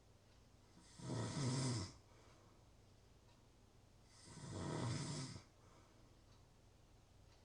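A person snoring: two snores about three seconds apart, one about a second in and one past the middle, each a low buzzing breath lasting about a second.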